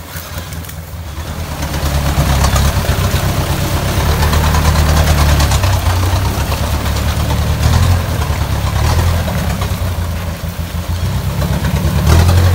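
An off-road vehicle's engine running at low revs under a constant hiss, louder from about two seconds in and easing off in the second half.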